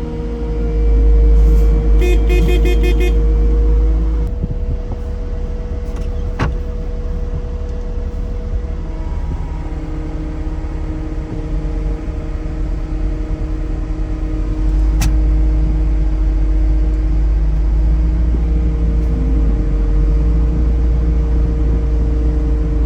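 A vehicle engine running steadily with a deep rumble, its load shifting about 4 seconds in and again about 15 seconds in. A short run of quick electronic beeps sounds around 2 seconds in, and there are two sharp clicks.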